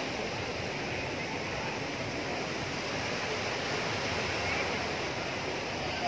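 Fountain jets spraying and falling back into a lake: a steady rushing, splashing water noise.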